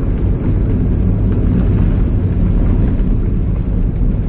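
Steady, loud rumble of a vehicle moving at speed in a high gear, its engine and road noise mixed with wind buffeting the microphone.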